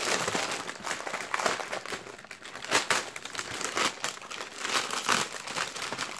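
Foil wrapper of a Panini FIFA 365 2020 Mega Starter Pack being pulled open and crinkled by hand: continuous crackling, with a louder crackle about three seconds in.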